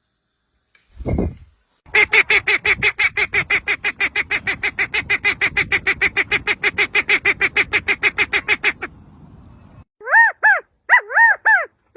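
A bird calling: a rapid run of pitched calls at about seven a second, lasting about seven seconds, then after a short pause four separate calls that rise and fall in pitch. A short low sound comes about a second in.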